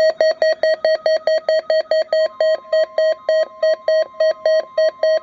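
Electronic alarm beeping from a weather radio, about five short beeps a second. About two seconds in, a faint steady high tone joins underneath, the National Weather Service warning alarm tone.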